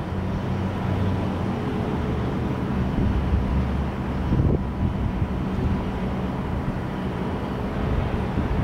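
Jet airliner engines during a takeoff: a steady noise, heaviest in the low end, with faint steady whining tones above it.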